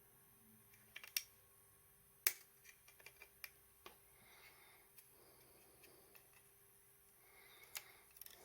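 Scattered sharp plastic clicks and taps, with some faint rubbing between them: a small plastic keypad being handled and pried apart by hand.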